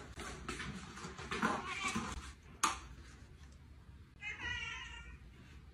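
A domestic cat gives one drawn-out meow about four seconds in. A sharp knock comes shortly before it, in the middle.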